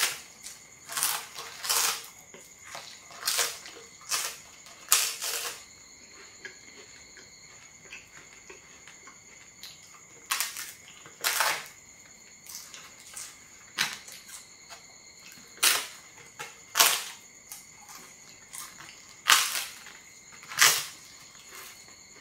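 Bites and chewing of a large, thin, crispy flatbread cracker: loud, sharp crunches in clusters, with a pause of about four seconds in the middle.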